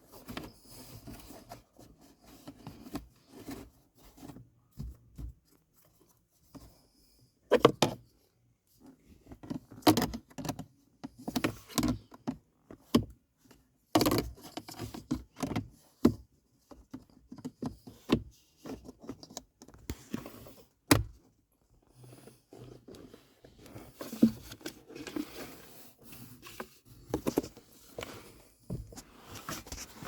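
Hands working on a Jeep Wrangler's cabin air filter housing and plastic trim: irregular clicks, knocks and rustling, with a few sharper knocks.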